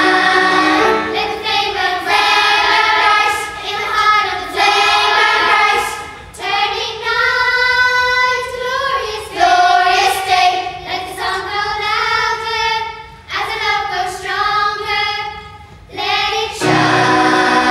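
Children's choir of girls and boys singing together in phrases, with short breaks between them.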